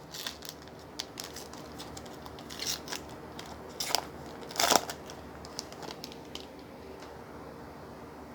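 A trading-card pack wrapper being torn open and crinkled by hand: a run of scattered crackles and short rips, the loudest rip just under five seconds in, then it goes quiet.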